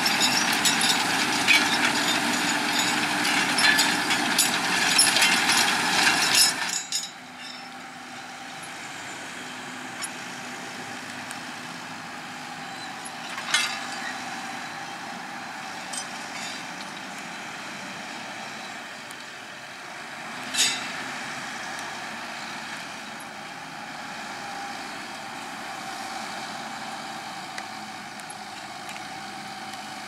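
Fendt 720 Vario tractor's six-cylinder diesel working hard under load while pulling a Kuhn five-furrow reversible plough through grassland. About seven seconds in the sound drops suddenly to a quieter, steady engine hum. Two sharp metallic knocks come about a third and two-thirds of the way through.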